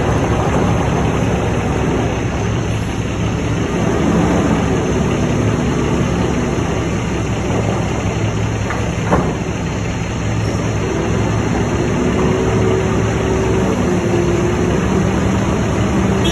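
Heavy diesel engines running as a reach stacker works a shipping container on a truck's chassis, the engine pitch rising and falling at times. A single sharp knock about nine seconds in.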